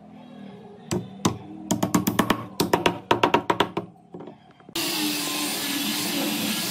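Rapid sharp taps and knocks on wood, coming in two quick runs. About five seconds in, a power tool switches on abruptly and runs steadily with a faint whine.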